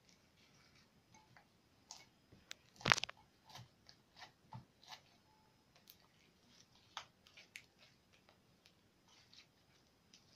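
Blue PVA-glue and borax slime being squeezed and kneaded in the hands, giving off irregular small sticky clicks and pops, the loudest about three seconds in.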